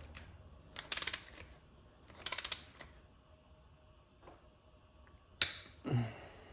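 Torque wrench ratchet clicking in two quick runs while head stud nuts are tightened, then one sharp click later.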